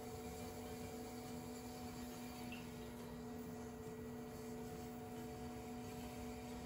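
Electric pottery wheel running, a faint steady hum with a few even tones.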